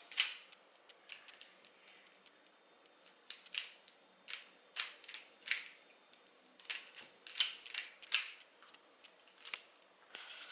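Plastic Rubik's Cube being turned by hand, its layers clicking as they snap round: irregular single clicks and quick runs of two or three, with short pauses between.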